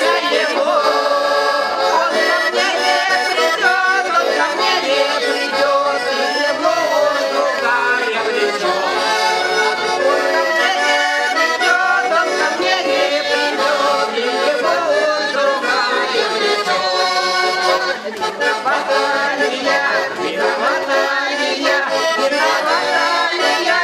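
Russian garmon (button accordion) playing a traditional folk tune, melody and chords without a break.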